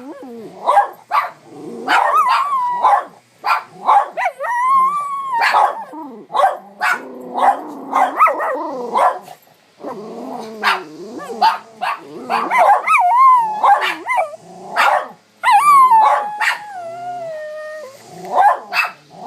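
A dog vocalising without pause: short sharp barks mixed with long, wavering, howl-like whines that slide in pitch, and a stretch of low growling near the middle. It is an unusual run of noises, set off by growling at strangers.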